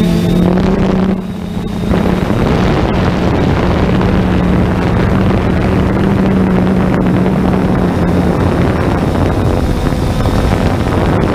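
Drone's propellers and motors buzzing steadily, mixed with wind noise, with a brief drop in level about a second in.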